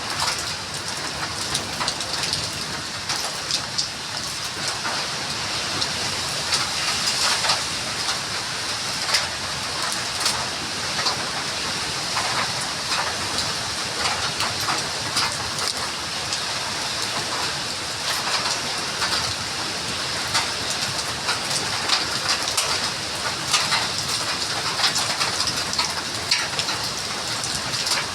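Steady rain, a continuous hiss with many separate drop hits scattered through it.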